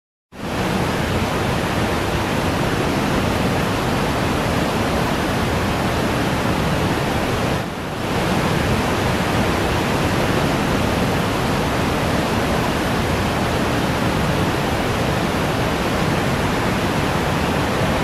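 Loud, steady rushing noise with no tone in it, starting and stopping abruptly, with a short dip about eight seconds in.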